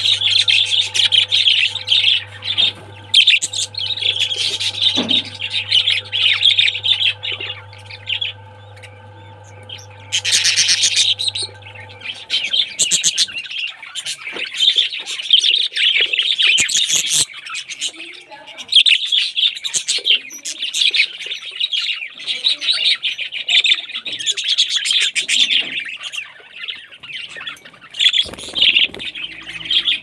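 A group of budgerigars chattering: a continuous warble of many quick chirps and squawks. A faint steady hum lies under it for the first dozen seconds, and there is a short rustle of movement about ten seconds in.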